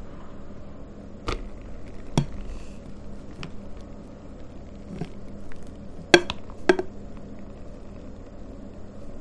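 Thick marshmallow mixture poured from a glass bowl into a plastic piping bag standing in a plastic cup, heard as a handful of sharp clicks and taps of bowl and plastic over a low steady hum; the loudest tap comes about six seconds in.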